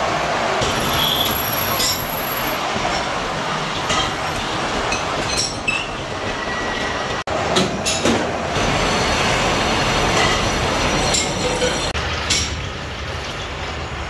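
Steady din of metal-turning lathes running in a machine shop where steel sprocket blanks are machined, with a few sharp metal clanks.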